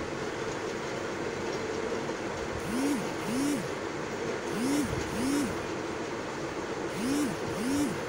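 Pakwan dough rounds sizzling in hot frying oil: a steady hiss. From about a third of the way in, a pair of short tones rises and falls, three times, about two seconds apart.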